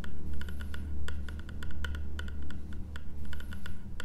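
Repeated tapping on a wooden school desk, sharp clicks about three or four a second, over a steady low hum.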